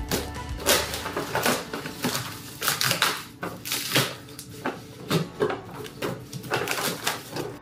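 Brown paper wrapping and cardboard being torn open by hand and plastic packing crinkled: a run of irregular ripping and rustling noises.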